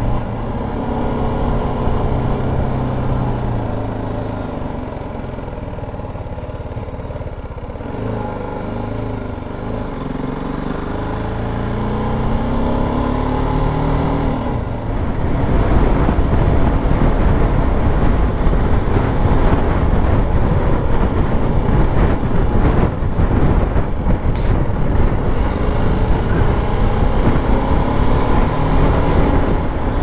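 Motorcycle engine running at road speed, its pitch climbing as it accelerates through the gears. About halfway in, loud wind buffeting on the microphone comes up and largely drowns it.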